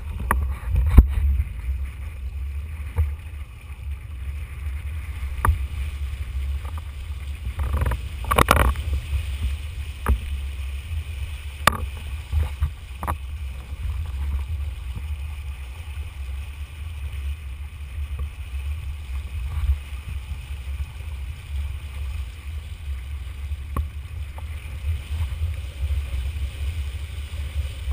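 Formula windsurf board planing fast: steady wind rumble on a boom-mounted camera with rushing water. Scattered sharp knocks run through it, and there is a louder burst of noise about eight and a half seconds in.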